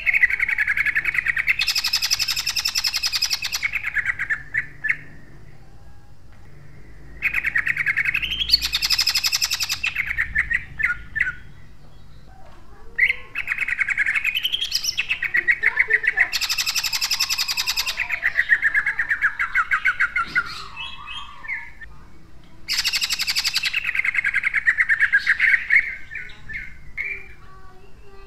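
Male greater green leafbird (cucak ijo) singing loudly in four bouts with short pauses between them. Each bout is built around a very fast, harsh rattling trill, the tightly spaced 'tembakan' burst prized in song contests.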